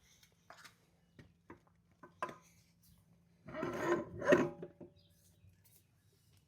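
Torque converter being worked onto a TH350 transmission's input shaft: a few light metal clicks and knocks, then a louder rough scraping and rubbing a little past the middle.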